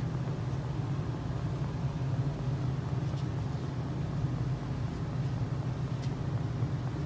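Steady low hum of an MTR East Rail Line electric train carriage, heard from inside by the closed doors, with a couple of faint ticks.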